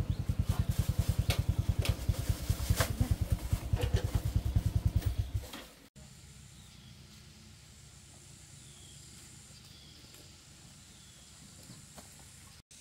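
Motorbike engine idling close by with a fast, even chugging. It dies away about six seconds in, leaving faint outdoor background with a few soft bird chirps.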